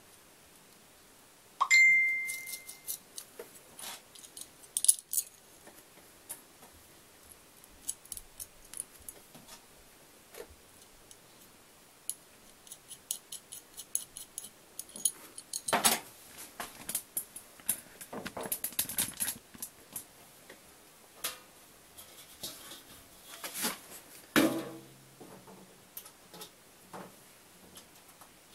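Metal parts of a washing machine's transport-lock bracket and its bolt clinking and rattling in the hands. About two seconds in, a sharp metallic strike rings briefly. Scattered small clicks follow, with a heavier knock near the end.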